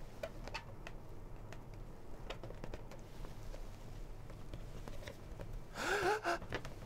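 A man's loud, sharp gasp with a short voiced cry, about six seconds in, over a low steady hum.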